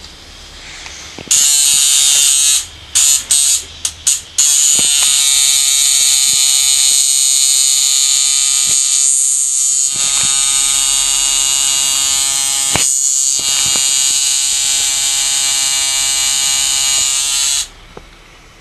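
Electric tattoo machine buzzing as it inks skin. It starts about a second in with a few short on-off bursts, then runs steadily until it stops near the end.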